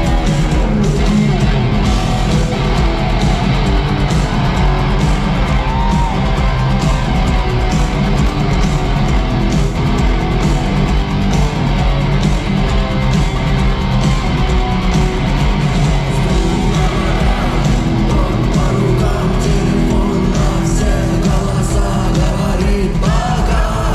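Rock band playing live, guitars over a steady beat, with a singing voice.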